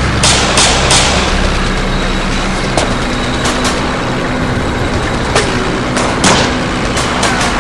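Gunshot sound effects: three quick shots in the first second, then several more scattered shots, over a steady low engine rumble.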